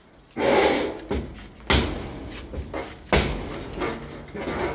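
Three heavy knocks on the car's sheet-metal rear body, about a second and a half apart, each dying away quickly: the damaged panel being struck as it is worked back into shape.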